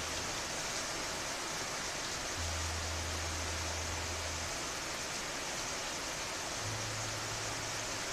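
Steady rain falling in the countryside: an even, unbroken hiss.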